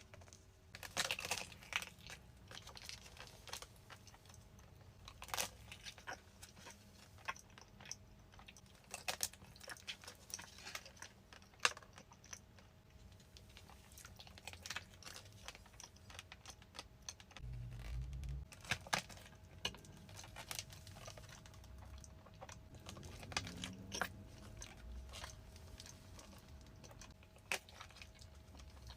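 Close-miked eating of pastries: chewing and biting, with irregular crisp crunches and clicks.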